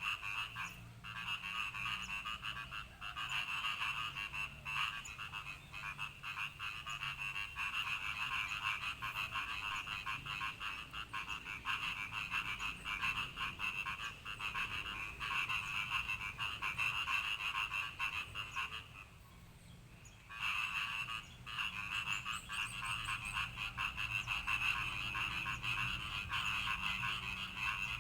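Frogs croaking in a dense, continuous chorus. The calling breaks off for about a second and a half roughly two-thirds of the way through, then starts again.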